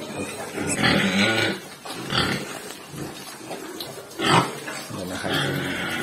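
Pigs grunting at a water trough: a string of short grunts, with one sharper, louder call about four seconds in.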